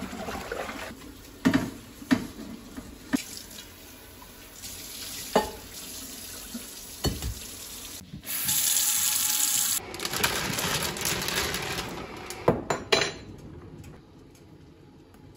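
Kitchen tap running into a stainless steel sink while a pot is washed with a sponge, with scattered knocks of the pot against the sink. About eight seconds in the water runs louder for a couple of seconds, then a pair of clanks comes near the end before the water stops.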